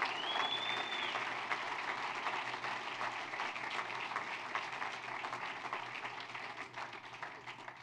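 Audience applauding, the clapping dying down near the end, with one short high whistle from the crowd just after it starts.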